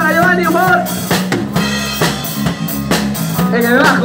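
Rock band playing live: drum kit hitting steadily under electric guitars and bass, with a voice singing over the first second.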